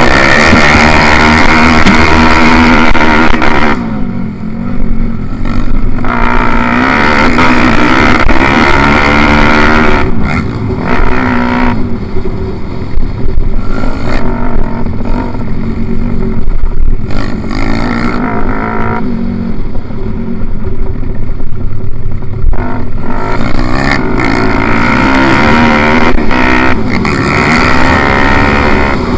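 Pit bike engine heard from on board at racing speed, revving hard and then dropping back as the throttle closes, three times, with the engine note rising again through the gears after each lift.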